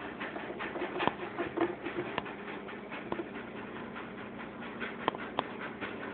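Soft scratching and rustling with a few sharp light taps as a cat noses and paws at a cardboard biscuit box.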